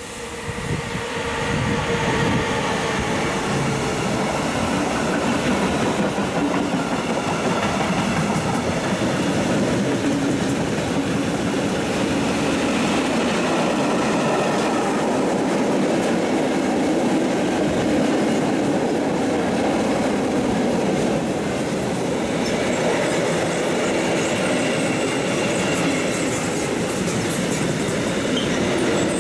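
Long mixed freight train hauled by an electric locomotive passing close by: the sound swells over the first couple of seconds as the locomotive arrives, then tank, car-carrier and sliding-wall wagons roll and clatter past steadily on the rails, with faint ringing wheel tones.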